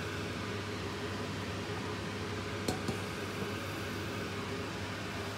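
Wok of Chinese cabbage simmering under a glass lid, with a steady fan-like whir and low hum from the kitchen. Two short clicks come about halfway through.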